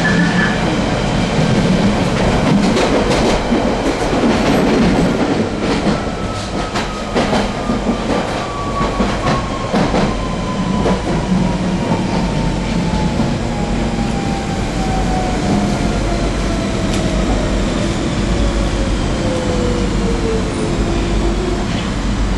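London Underground 1992 stock train running, heard on board: a steady rumble with a run of clicks from the wheels over the rail joints, and a motor whine that falls steadily in pitch as the train slows.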